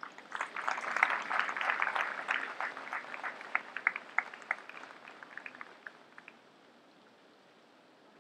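Audience applause: dense clapping that starts suddenly, then thins to a few scattered claps and dies away about six seconds in.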